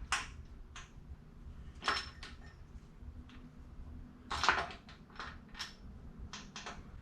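Light metallic clicks and clinks, about a dozen at irregular intervals, with a small cluster a little past the middle, as a Subaru engine's rocker arms are turned and set into place against the valves.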